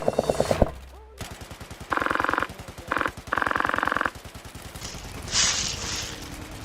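Airsoft replica firing on full auto: three quick rattling bursts about two to four seconds in, followed by a short hiss.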